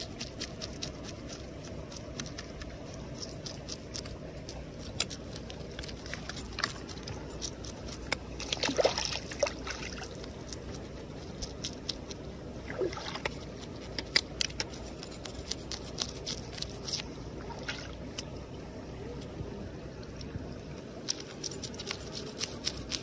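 A machete blade scraping the scales off a fish on a rock: a run of short, irregular scratching clicks over the steady trickle of shallow stream water.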